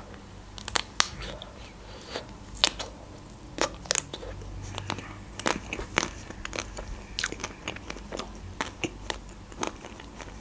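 Close-up eating sounds of a chocolate-coated ice cream bar being bitten and chewed: the hard chocolate shell cracks in a string of short, sharp crunches spread through the chewing.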